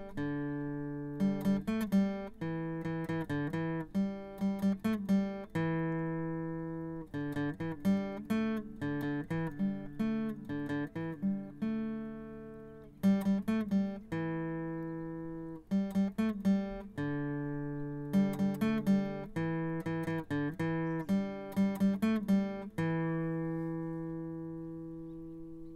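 Background music: solo acoustic guitar fingerpicking short phrases of notes, each phrase ending on a chord left to ring and fade.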